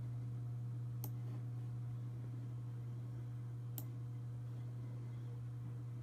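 Two sharp computer mouse clicks, about three seconds apart, over a steady low hum.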